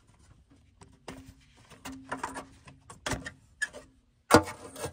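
Irregular clicks, taps and rubbing from gloved hands handling parts in an old car's engine bay, with one sharper knock near the end.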